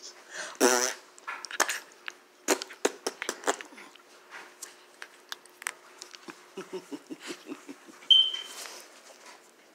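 Small dog play-biting a hand close to the microphone: a run of mouth clicks and snuffles, a short wavering vocal sound about a second in and low grunting pulses around seven seconds. A short, sharp, high squeak a little after eight seconds is the loudest sound.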